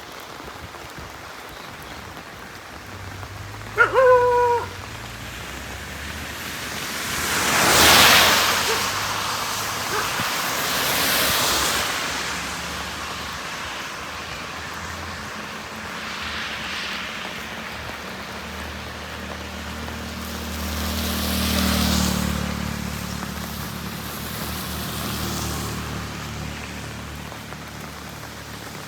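Steady heavy rain with vehicles passing on the wet highway, their tyres hissing through standing water in several swells, the biggest about eight seconds in and again near twenty-two seconds, where a truck's engine rumbles past. About four seconds in, a vehicle horn honks briefly.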